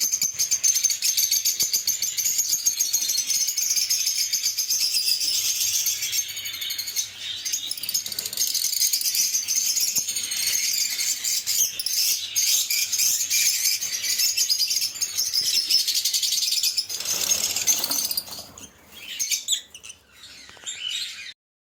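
Lovebirds chirping in a dense, rapid, high-pitched chatter that thins out about three-quarters of the way through and then cuts off abruptly.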